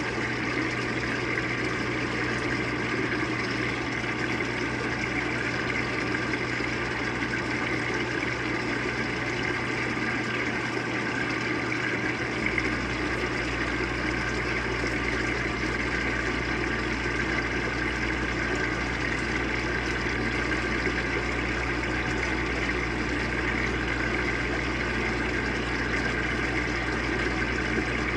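Avanti top-load washing machine filling: water pours in a steady stream into the soapy tub. A low steady hum joins about halfway through.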